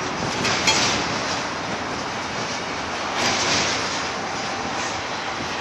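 Double-stack intermodal container well cars of a freight train rolling past, making a steady rumble of steel wheels on rail. A brief high squeal comes just under a second in.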